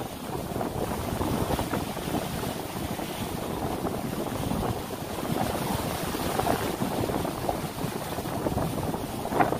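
Wind buffeting the microphone over the rushing water and low rumble of a moving boat, with a brief bump near the end.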